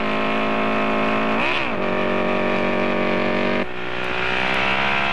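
Motorcycle engine running at speed. Its pitch dips and climbs back briefly at the start and again about a second and a half in, then drops a step about three and a half seconds in and slowly rises again.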